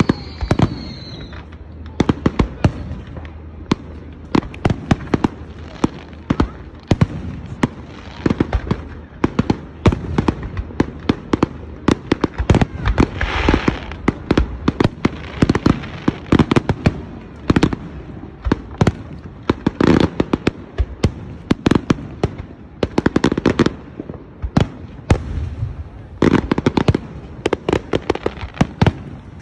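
Aerial fireworks display: a dense barrage of shell bursts and bangs, several a second with no pause, with a short falling whistle right at the start.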